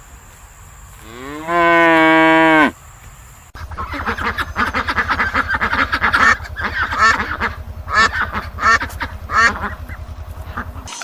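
One long, low animal call, rising at first and then held for about a second. After a sudden cut, a flock of birds calls rapidly and noisily over a steady low hum.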